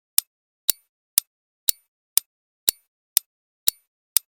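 Quiz countdown timer's clock-tick sound effect: sharp, even ticks, two a second, counting down the answer time.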